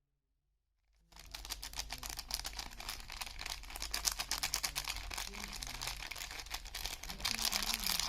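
Soap packaging being crinkled and peeled open by hand: a dense, continuous crackling of fine clicks that starts about a second in.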